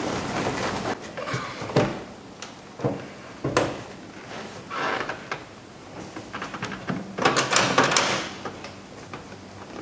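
Scattered knocks, clicks and rubbing of a classic car's interior door panel and trim handles being pressed and fitted onto their shafts by hand, with a quick run of clicking near the end.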